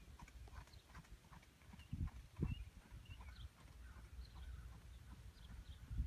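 Faint hoofbeats of a horse moving over grass and dirt footing, over a low rumble, with two low thumps about two seconds in.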